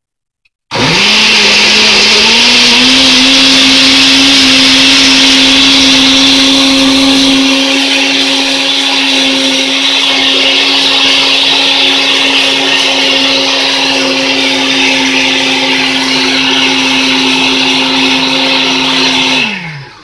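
Countertop blender with a glass jar running, blending bananas, coconut oil, coconut sugar and water into a smoothie. It switches on about a second in, its motor hum rising in pitch as it spins up, runs steadily and loudly, then winds down with a falling pitch and stops just before the end.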